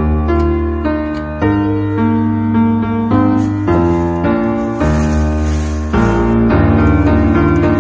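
Background music: a melody over sustained bass notes that change every second or so.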